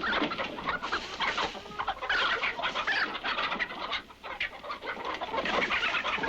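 A flock of chickens squawking and clucking loudly as they fight off a coyote, with a brief lull about four seconds in.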